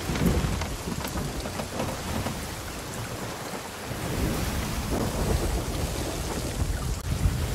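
Steady heavy rain with low thunder rumbling, a little louder in the second half.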